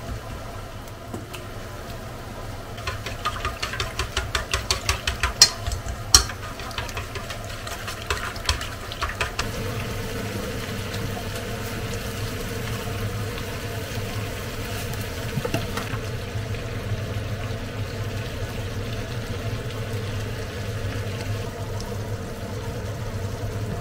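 Eggs beaten briskly against a stainless steel bowl: a fast run of light clicks for about six seconds. Then chicken and onion cooking quietly in a frying pan on an induction hob, with a steady hum.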